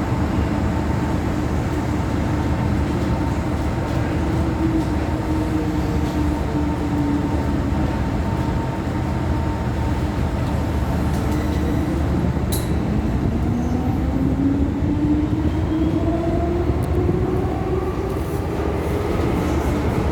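MTR M-train electric multiple unit running, heard from inside the car: steady rail and wheel rumble under the traction motor whine, which falls slowly in pitch as the train eases off and then rises steadily through the second half as it picks up speed again.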